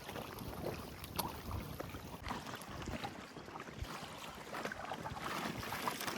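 Water splashing and lapping around a coracle being paddled on a river, with wind on the microphone and a few faint knocks.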